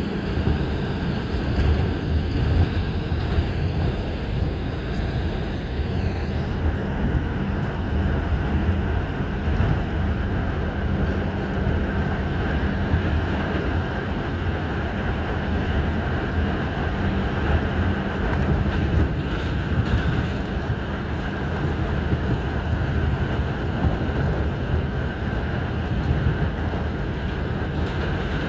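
New York City subway 5 train running through a tunnel, heard from inside the car: a steady, loud rumble of wheels on the track.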